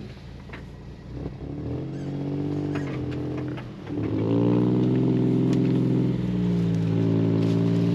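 Suzuki Carry kei truck's 660cc engine pulling along a muddy trail: the revs climb about two seconds in, dip briefly just before four seconds, then hold a steadier, louder note.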